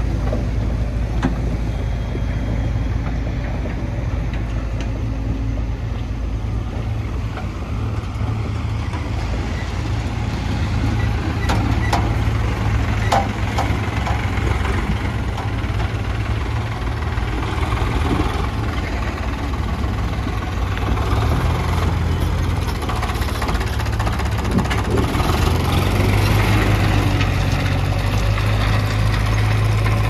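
Heavy diesel engine of a working backhoe loader running steadily, growing louder from a little past the middle. A few sharp knocks come about twelve seconds in.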